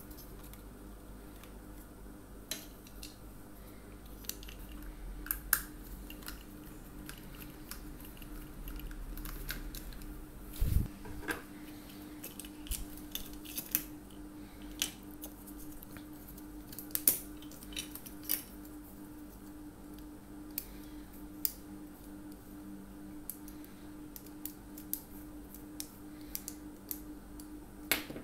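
Scattered small clicks and taps from handling a plastic two-pin plug and a small screwdriver while its terminals are being wired and screwed down, over a steady faint hum.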